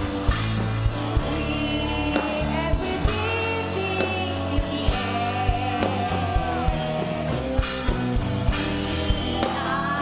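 Rock-style music with a steady drum beat and a woman singing a melody into a microphone.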